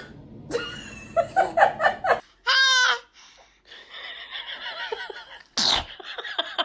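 Laughter in a quick run of short bursts, then a high warbling squeal, and a sudden loud sneeze near the end.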